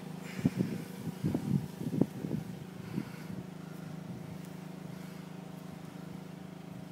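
A steady low mechanical hum with a buzzing pitch runs throughout, and a few short knocks and rustles come in the first three seconds.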